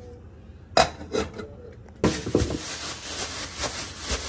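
A sharp clink of cookware about a second in, with a smaller clatter after it. From about two seconds in, a thin plastic grocery bag rustles and crinkles as a hand works inside it.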